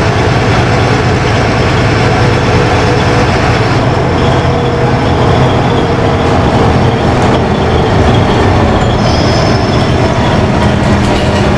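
Inside a LiAZ-5292.20 city bus on the move: steady rumble of the diesel engine and drivetrain with road and body noise, and a faint whine in the mix during the first few seconds.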